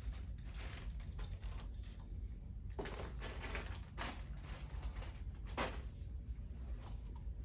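Handling noises: rustling with light clicks and knocks, with louder scrapes about three, four and five and a half seconds in, over a steady low hum.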